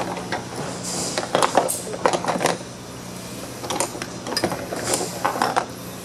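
Metal wire frame of a neon sign clattering and knocking as it is handled and turned on the bench: two spells of rattling clicks, one about a second in and another past the middle. A steady low hum runs underneath.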